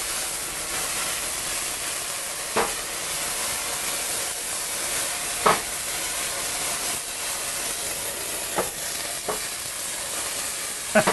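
Cognac flambéing in a hot skillet: a steady sizzling hiss as the alcohol burns off over the pan drippings, with a few short knocks as the pan shifts on the stove.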